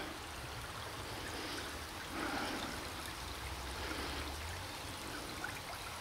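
Shallow stream water trickling and rushing steadily over rocks.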